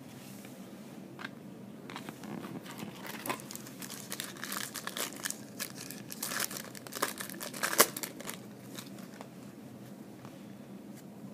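Trading-card pack wrapper being crinkled and torn open by hand, a run of irregular crackles with one sharp crackle near the end.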